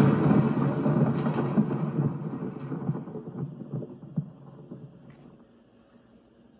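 Film-logo intro sound effect: a sudden thunder-like rumble with a crackling shimmer that fades away over about five seconds.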